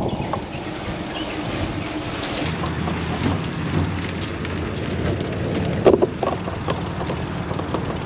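Steady rumbling wind noise on the microphone, with a few short knocks about six seconds in.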